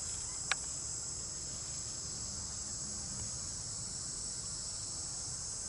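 Steady, high-pitched drone of a chorus of insects, unbroken throughout, with a single sharp click about half a second in.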